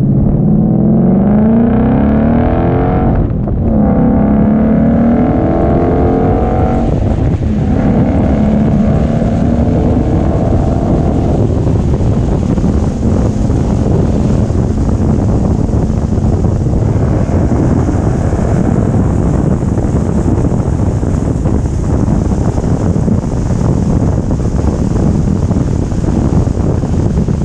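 Car exhaust fitted with Mishimoto muffler deletes and a Magnaflow Tru X X-pipe, heard from outside the car while accelerating: revs rise, break at two gear changes about 3 and 7 seconds in, and climb again. From about 11 seconds on the car cruises at steady speed, and road and wind noise take over from the quieter engine note.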